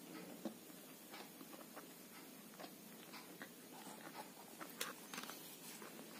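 Faint chewing of a kachori, with soft scattered clicks and mouth noises.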